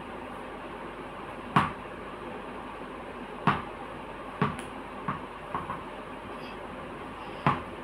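Short sharp knocks of a ball in catching practice, six in all at uneven intervals of one to two seconds.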